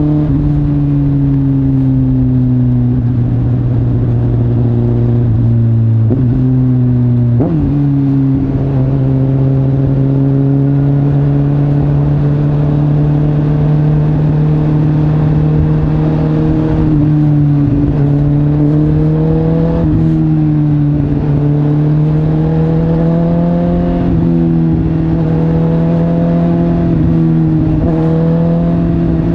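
Suzuki GSX-S1000's inline-four engine through an aftermarket Arrow exhaust, heard from the saddle while riding in traffic. The engine note holds steady, then climbs and drops several times as the throttle is opened and closed, with quick sharp changes in pitch about six and seven and a half seconds in. Wind and road noise run underneath.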